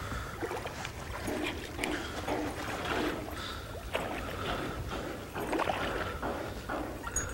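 A hooked bass splashing and thrashing at the water's surface beside the boat as it is reeled in, a string of irregular splashes, with a steady low wind rumble on the microphone.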